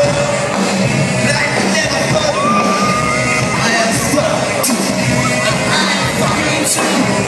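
Live band music with drums and a male lead singer, heard from among the audience, with the crowd yelling and whooping along.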